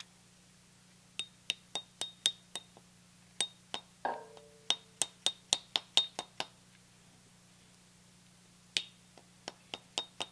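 Steel socket tapping and clinking against a new SKF ball bearing set on the end of a Delta 6-inch jointer's cutter-head spindle: quick runs of sharp, ringing metal clinks with pauses between, and one longer ringing clang about four seconds in.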